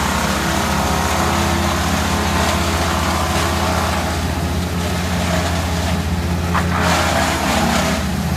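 Large engine of tree-removal machinery running steadily at a constant speed, with a harsher hissing noise swelling over it about four seconds in and again near seven seconds.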